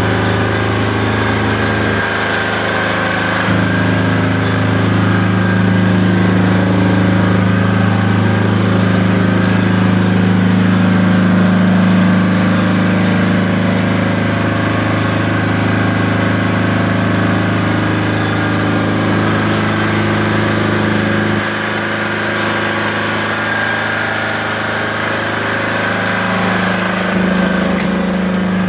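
Diesel generator engine running steadily, a loud low hum that shifts slightly in tone a few times.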